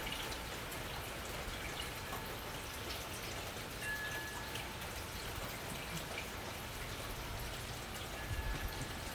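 Rain falling steadily, with scattered drops dripping and pattering. Low wind gusts come in near the end.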